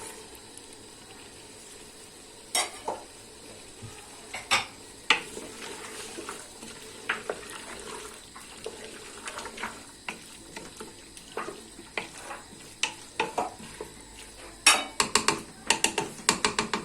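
Vegetables and tomato paste frying in oil in a pot, with a steady sizzle, while a spoon stirs and knocks against the pot. Near the end the spoon clinks quickly and repeatedly against the pot.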